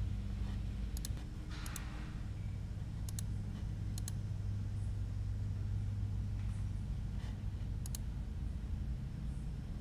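Computer mouse clicking four times, each click a quick pair of sharp ticks, over a steady low hum.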